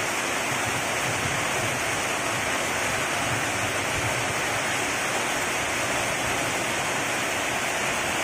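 Steady rain falling on a corrugated metal roof overhead and on the wet swamp ground, an even hiss with no breaks.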